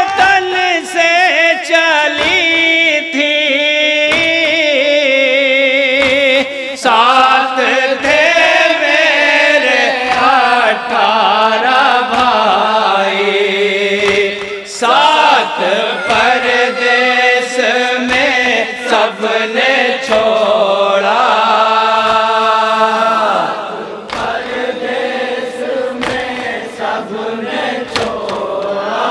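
Men's voices chanting a Shia noha together through microphones, in a slow, held, wailing melody. Sharp, regular slaps of chest-beating (matam) keep the beat under the chant.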